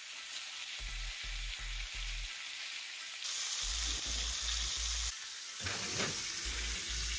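Thick New York strip steaks sizzling as they sear in tallow in a hot cast-iron skillet. The sizzle grows louder about three seconds in.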